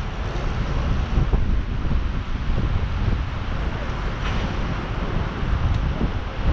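Wind buffeting the microphone of a camera riding on a moving bicycle: a steady noise with a low, fluttering rumble.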